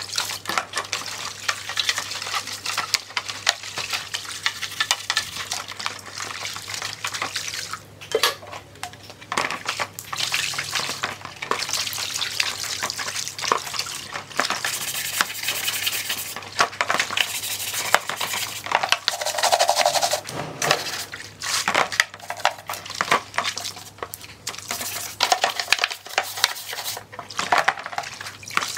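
Scouring sponge scrubbing a metal chassis panel and plastic speaker-housing parts in a tub of soapy water: rapid scratchy rubbing with splashing and occasional knocks of the parts.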